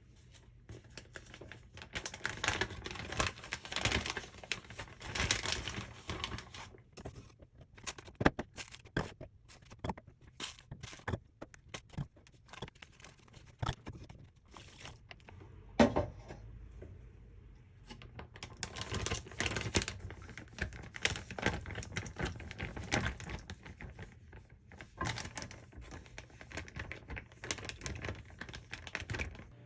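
A plastic bag crinkling and rustling as it is handled and squeezed, in two long spells with scattered sharp clicks and taps between, one louder tap about halfway through.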